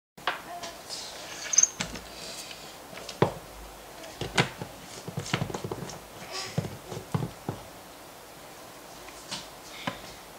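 Sharp clicks, taps and knocks of a plastic personal-blender cup being handled: the cup is filled with roasted cherry tomatoes and its blade lid is screwed on before blending. About a dozen knocks are spread irregularly through it.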